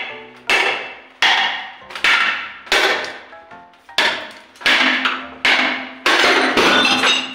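Claw hammer repeatedly smashing a wall-mounted ceramic bathroom sink to break it off the wall. Sharp blows come a little under a second apart, each ringing briefly, with a quicker run of blows near the end.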